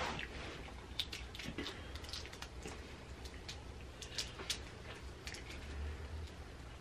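Scattered faint clicks and crackles of shrimp and crab shells being peeled by hand, over a low steady hum.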